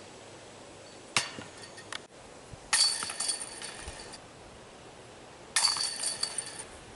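Discs hitting the chains of a disc golf basket. There is a sharp clank about a second in, then two longer bursts of metallic chain jingle, one a little under three seconds in and one near the end.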